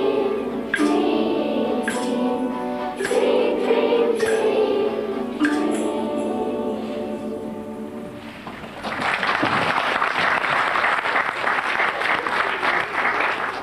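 Children's choir singing the last lines of a song, the sung notes fading out about eight seconds in. Then the audience applauds steadily to the end.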